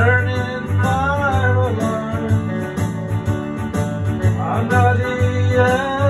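Slow country-style music from a Yamaha arranger keyboard: a steady bass and beat with jingling percussion under a gliding lead melody.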